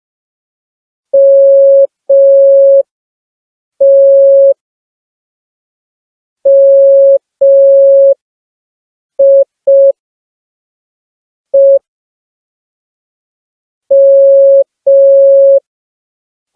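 Morse code (CW) beeps from a smartphone Morse practice app: one steady mid-pitched tone keyed on and off, mostly long dashes with a few short dots. It is sent slowly, with long gaps between letters, as a beginner keys or copies it.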